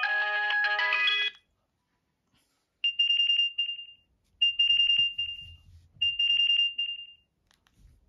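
Philips 162 mobile phone's loudspeaker playing its built-in ringtones: a polyphonic melody ends about a second and a half in, and after a short pause the next ringtone starts, a high trilling ring sounded three times, each about a second long. A couple of faint clicks near the end.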